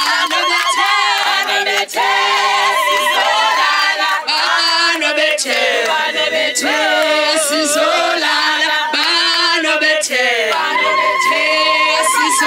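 A group of voices singing together unaccompanied, with several parts overlapping and wavering.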